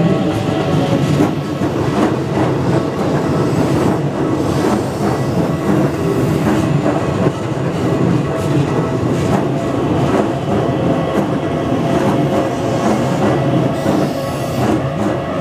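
Electric commuter train running past a level crossing on the Keikyu line, wheels knocking over the rail joints.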